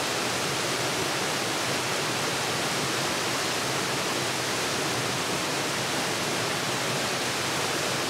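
Steady rush of a waterfall cascading into a rock plunge pool in a mountain stream.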